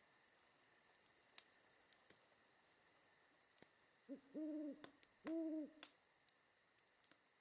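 Two low hooting calls about a second apart, each steady in pitch and about half a second long, over near silence with a few faint clicks.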